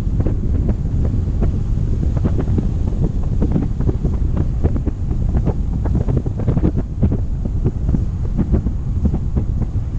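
Strong wind buffeting the microphone: a loud, steady low rumble broken by rapid, irregular gusty pulses.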